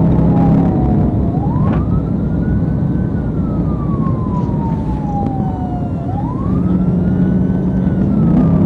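Police car siren in wail mode, its pitch rising fairly quickly and then falling slowly, about every five seconds. Beneath it is the steady road and engine noise of the patrol car at highway speed.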